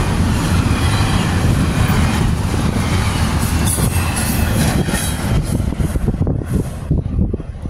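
Freight train's last double-stack container cars rolling past, wheels rumbling and clacking over the rails with some squealing. The noise fades and breaks into a few separate clacks near the end as the last car clears.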